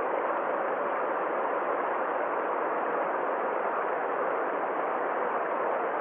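Steady rush of a small stream tumbling over a low rock cascade.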